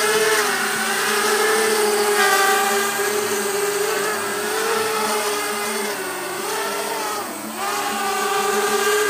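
JJRC JJPRO P175 175 mm racing quadcopter's four brushless motors and propellers whining in flight, the pitch wavering up and down with the throttle. About seven seconds in the pitch drops briefly as the throttle is eased off, then comes back up.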